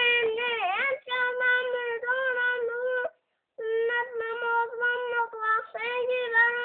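A young child's voice chanting in a sing-song on one steady note, in phrases of about a second with short breaks, including a quick falling swoop in the first second and a half-second pause near the middle.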